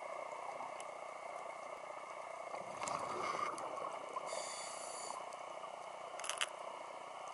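Underwater sound through a diving camera's housing: a steady hiss. About three seconds in there is a louder rush of scuba exhaust bubbles, then a brief high buzz and a sharp click later.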